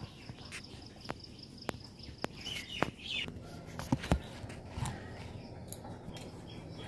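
Footsteps at a steady walking pace, about two a second, with a bird chirping over them and a faint high pulsing chirp behind. Two sharp knocks come about four seconds in.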